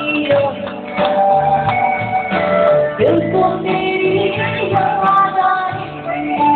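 Live band music played on stage, with a singer's voice carried over the instruments.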